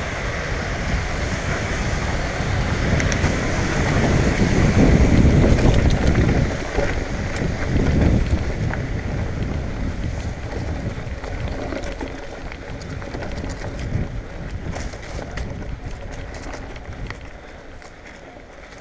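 Riding noise from a Marin Bobcat Trail 5 hardtail mountain bike: tyre rumble and wind rushing over the camera microphone, loudest for a few seconds in the first half. It then turns quieter, with scattered clicks and rattles of the bike over a dirt trail strewn with dry leaves, fading toward the end.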